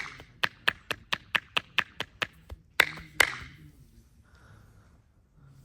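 Massage hands striking in percussive tapping massage: a quick, even run of sharp slaps at about four to five a second, then two louder slaps a little under three seconds in.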